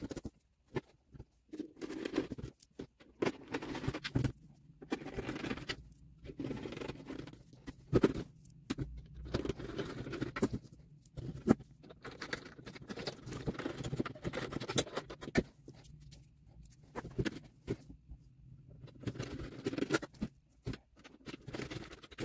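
Plastic handling noise from a car's instrument-cluster surround: irregular scraping, rustling and sharp clicks and knocks as the Perspex lens is seated and its small screws are driven back in with a hand screwdriver.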